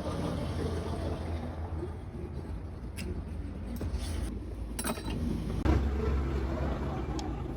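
Steady low vehicle rumble of nearby traffic, with a few sharp metallic clicks from hand tools working on the engine about three, four and five seconds in.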